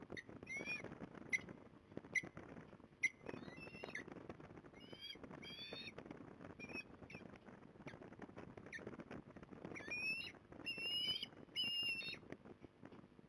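Osprey calling: a scattered series of short, high whistled chirps, some rising in pitch, with a quicker run of longer chirps near the end, over a steady low rushing noise.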